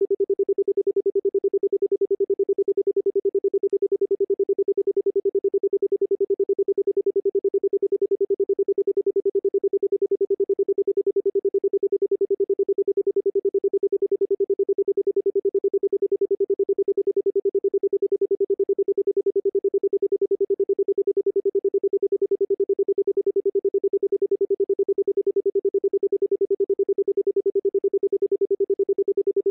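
Synthesized pure-tone sound-therapy frequency, billed as 194.71 Hz: one steady electronic tone that pulses rapidly and evenly in loudness.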